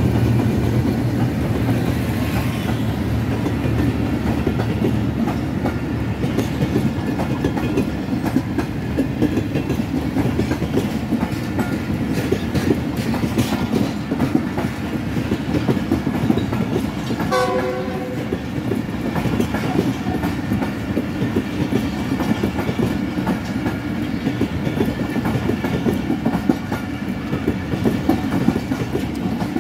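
Pakistan Railways passenger coaches rolling past at speed close by: a steady heavy rumble with wheels clicking and clattering over the rail joints. A short horn-like tone sounds once, about halfway through.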